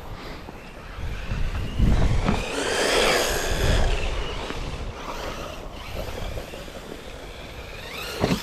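Brushless motors of 1/16-scale HSP RC cars whining, rising and falling in pitch with the throttle, with a louder stretch and a low rumble a couple of seconds in and a fast rising spool-up near the end.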